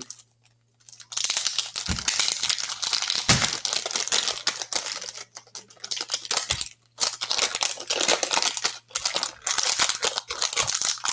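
Plastic wrap crinkling and tearing as it is peeled off a 6x6 puzzle cube, in bursts with short pauses.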